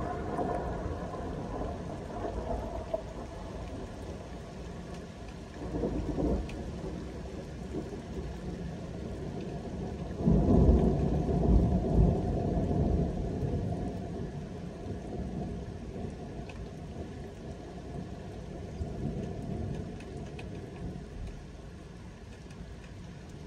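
Thunder rumbling over steady rain. Rolling peals build and swell again a few seconds in; the loudest, deepest rumble comes about ten seconds in and then dies away slowly.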